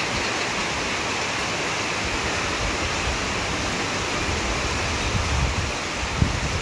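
Heavy rain pouring down in a steady hiss, with low rumbles of wind on the microphone in the second half.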